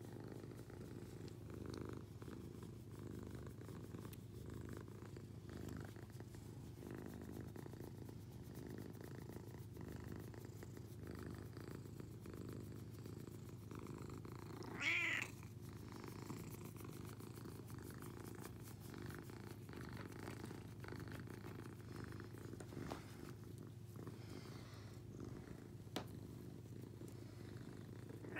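Domestic cat purring steadily while being scratched about the head and chin. About halfway through comes one brief, louder, higher-pitched cry.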